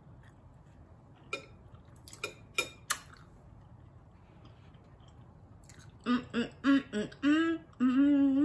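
Mouth sounds of a woman eating noodles: a few short smacks and clicks while she chews. About six seconds in she hums a string of short closed-mouth 'mm' sounds of enjoyment, the last one held longer.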